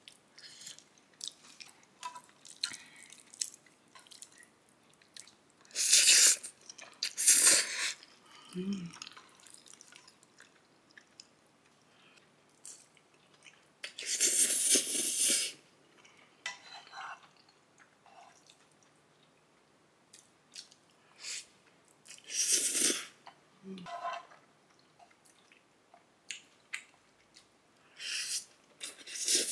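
A person eating instant stir-fried ramen noodles close to the microphone, chewing and slurping. A handful of louder slurps, each about a second long, stand out against quieter chewing and small clicks.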